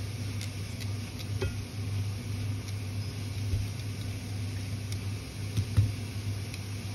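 Stir fry of noodles, Quorn pieces and mushrooms sizzling in a frying pan while it is tossed with silicone-tipped tongs, with a few light clicks. A steady low hum runs underneath, and a single knock sounds near the end.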